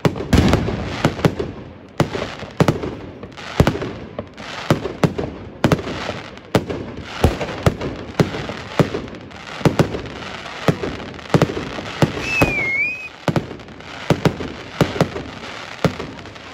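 Fireworks display: aerial shells bursting in an uneven run of sharp bangs, about two a second, over a steady haze of noise. A short wavering whistle sounds about twelve seconds in.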